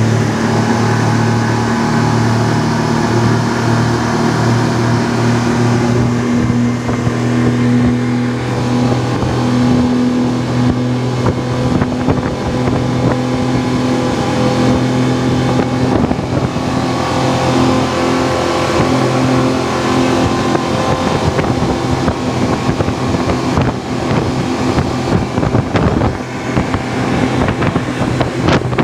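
Motorboat engine running steadily over the rush of water and wind. The engine hum is strongest in the first two-thirds, and the rushing noise takes over after that.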